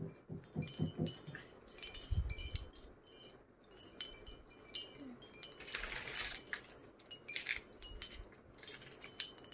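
Small brass bells on a beaded wall hanging jingling and tinkling irregularly as it is handled and untangled, with light clicks of beads among the rings.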